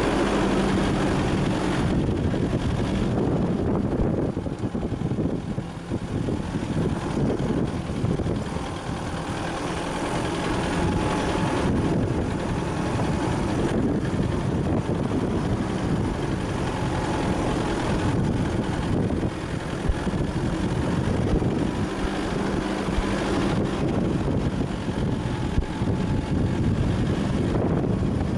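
Four-wheel-drive vehicle driving on a rough unpaved mountain track: the engine running under a continuous uneven rumble and rattle from the vehicle jolting over the dirt and stones.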